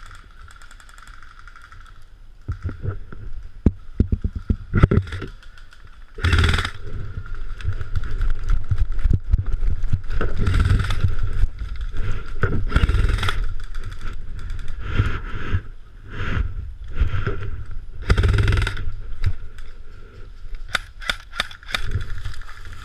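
Rustling and scuffing of movement, with loud gusts of noise now and then and a quick run of sharp clicks near the end: shots from an airsoft gun.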